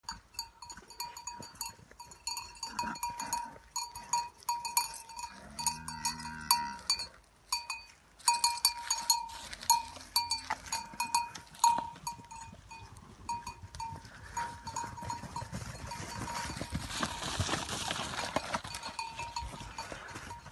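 Cowbell on a cow's neck strap clanking in an uneven rhythm as the cow walks, each clank ringing with the same bright tone. Two short low moos come in the middle, and a rustling of hooves through grass and hedge grows louder near the end.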